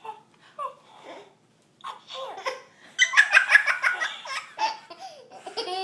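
High-pitched laughter: short voice sounds at first, then a loud, quick run of giggling pulses for about a second, starting about three seconds in.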